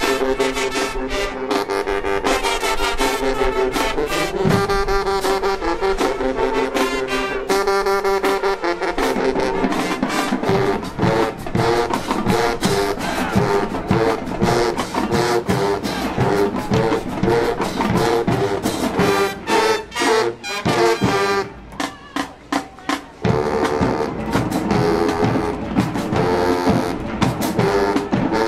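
High school marching band playing: the brass hold long chords for the first several seconds, then move into a rhythmic passage over drums. Around twenty seconds in the music breaks into a few short, punched hits with gaps between them before the full band comes back in.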